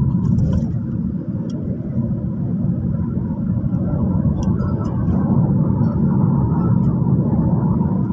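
Steady low rumble of road and engine noise heard from inside a moving vehicle travelling at speed along a highway.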